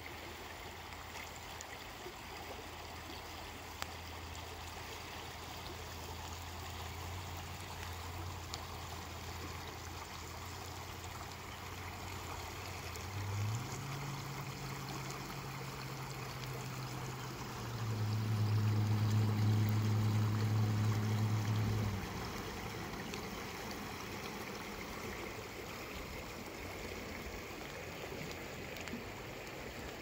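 Shallow river flowing over a cobble bed: a steady rush of water. Beneath it, a low steady hum jumps up in pitch about thirteen seconds in, is the loudest sound for about four seconds in the middle, then stops.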